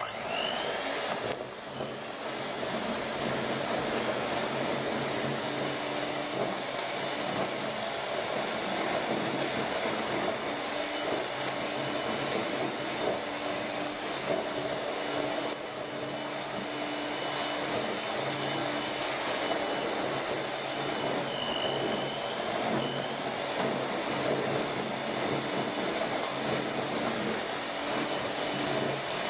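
Electric hand mixer starting up and running steadily, its beaters creaming chunks of butter with granulated sugar in a stainless steel bowl.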